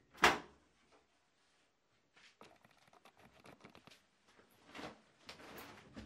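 Bosch heat pump tumble dryer door pulled open, with one sharp clack of the door catch just after the start. Faint rustling of clothes being handled follows from about two seconds in.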